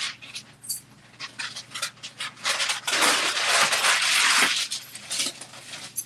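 Paper rustling and crinkling as a cover sheet is laid over a T-shirt on a heat press platen and smoothed flat by hand. A few light crackles come first, then a longer rustle from about two and a half to four and a half seconds in.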